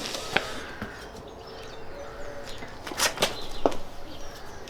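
A few short knocks and clinks from metal suspension parts being handled, with faint bird chirps in the background.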